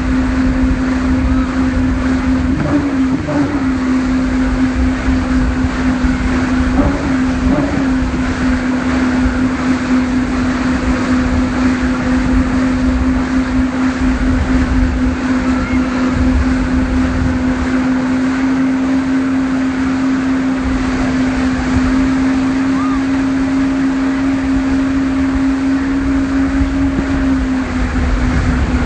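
Towing speedboat's engine running at a steady speed with a constant hum, wavering briefly a few seconds in, over rushing water from the wake and wind buffeting the microphone.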